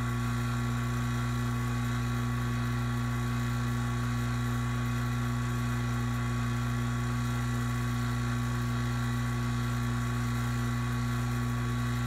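Refrigeration vacuum pump running with a steady, unchanging hum as it pulls a deep vacuum on the manifold gauges, down around 11 microns.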